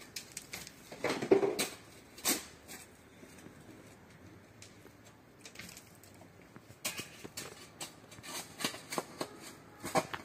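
Scattered clicks, knocks and scrapes of steel shovels digging into loose gravel and soil, with a louder scrape about a second in and a busier run of clicks near the end.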